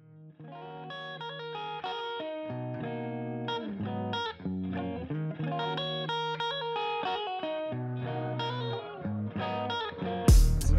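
Intro music: a plucked guitar riff that fades in, with heavy bass and drums coming in near the end.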